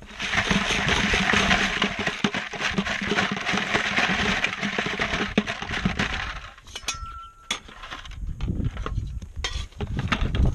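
Gravel and small stones rattling and grinding in a half-inch prospecting classifier screen as it is shaken, a dense continuous rattle for about six seconds, then a few scattered clinks of stones.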